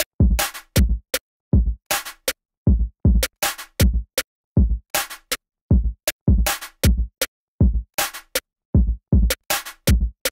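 Electronic background music: a drum-machine beat of quick, separate hits with sharp silent gaps between them.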